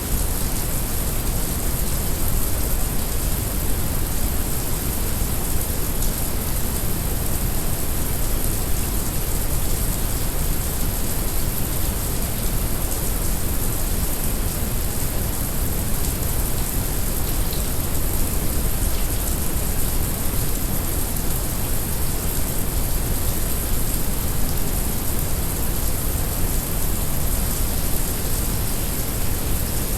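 Heavy rain recording layered with brown noise: a steady, unchanging deep rumble under the bright hiss of falling rain.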